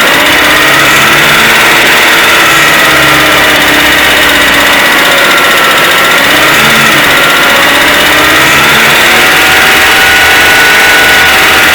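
Citroën C3 1.6 16-valve engine running steadily, held at about 2000 rpm with its speed wavering slightly, during an oil pressure test. The engine has a valve-tapping complaint, and the pressure at this speed reads below 2.5 bar instead of 3, a deficiency later traced to the oil pump and tappets.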